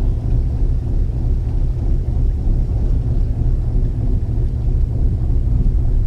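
Steady low rumble of a fishing boat's engine running at sea.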